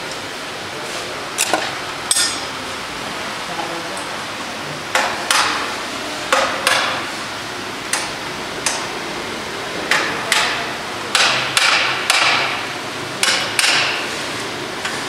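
Sharp knocks of tools striking in a motorcycle assembly workshop, often two in quick succession, coming every second or so from about five seconds in, over steady background noise.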